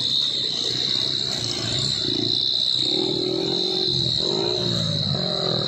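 Heavily loaded light truck's diesel engine labouring up a steep grade, its note rising and falling as it pulls.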